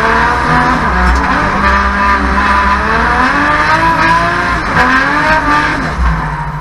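Nissan Skyline R32 drift car's 1.5JZ straight-six, heard from inside the cabin, revving up and down with the throttle while sliding, with tyres squealing. About six seconds in the revs drop and the engine settles lower and steadier.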